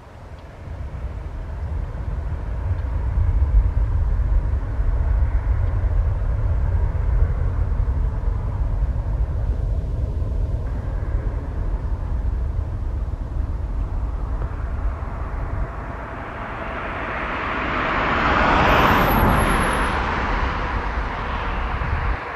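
Boeing 737 jet engines at takeoff power during the takeoff roll: a deep rumble that builds in the first second or two, with a broader roar swelling and fading again near the end.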